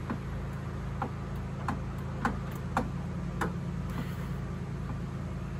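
Socket ratchet clicking in short, uneven strokes, roughly one or two a second, as a reservoir mounting bolt is turned out by hand, over a steady low hum.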